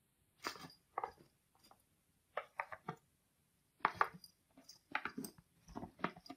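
A cat's paw and claws tapping and scraping the glass screen of a tablet: irregular quick taps, some in clusters of two or three.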